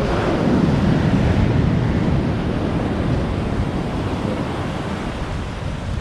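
Surf washing up a sandy beach, mixed with wind blowing across the microphone; the rush swells about a second in and then holds steady.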